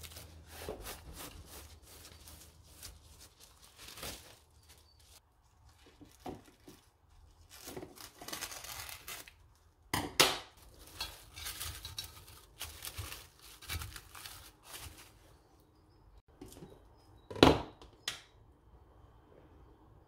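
Plastic cling film being pulled off its roll and pressed into a glass baking dish, crinkling and rustling in irregular bursts, with two louder sharp crackles, one about halfway and one near the end.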